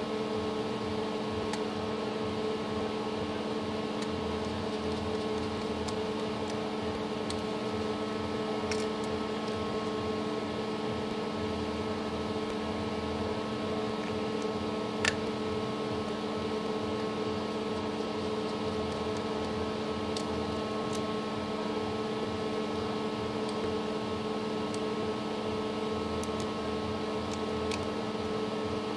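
Steady machine hum made up of several held tones, with a few faint clicks and one sharper click about fifteen seconds in as small breaker parts and screws are handled.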